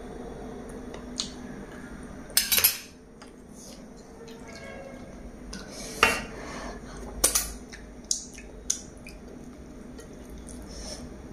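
A metal spoon and tableware clinking: a steel spoon knocks against a ceramic bowl and a glass bowl is shifted on the table. There is a cluster of sharp clinks about two and a half seconds in, another around six seconds, and a few single clinks after, over a faint steady hum.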